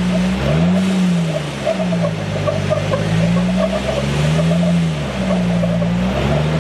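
Supercharged Jeep engine revving up and down over and over as it works to climb rock, its pitch rising and falling about five times.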